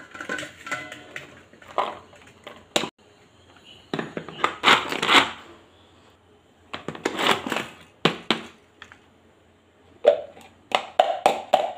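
Hand-operated push-down chopper being plunged over and over, its blades crunching through peeled garlic cloves in a plastic bowl, with clacks of the plastic plunger and lid. The crunches come in irregular spurts a second or two apart.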